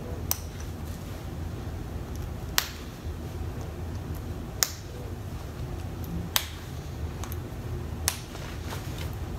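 Snap fasteners on a cotton jacket being pressed shut by hand one after another: five sharp clicks about two seconds apart, over a low steady room hum.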